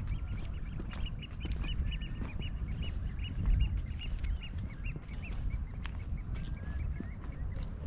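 A flock of birds calling: many short, quick calls overlapping, thickest in the first couple of seconds and then thinning out, over a steady low rumble.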